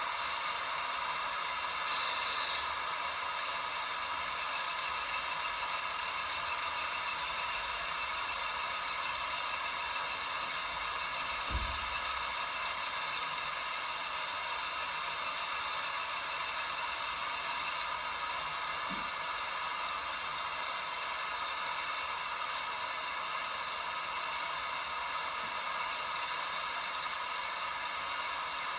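LG WT5680HVA direct-drive top-load washer running through its cycle: a steady hiss, with one low thump about halfway through.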